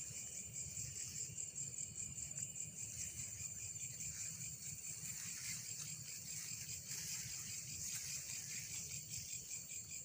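A night insect chorus, crickets and the like, trilling steadily in several high pitches. Under it is a low rumble of movement.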